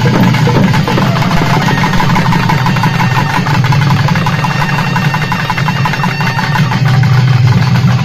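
Naiyandi melam folk band playing for karakattam dancers: rapid, dense beating on double-headed barrel drums over a steady low drone.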